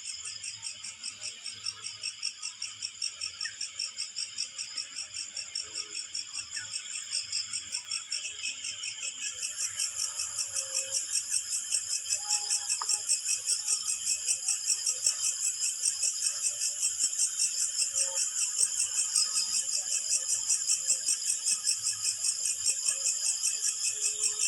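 A chorus of night insects, crickets or similar, chirping in fast, continuous pulses. A higher-pitched chorus joins about ten seconds in and the sound grows louder.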